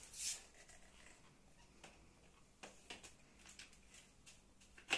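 Handling noise of plastic vacuum-cleaner parts being fitted together: a brief rustle at the start, a few faint clicks and taps, and a sharper click near the end.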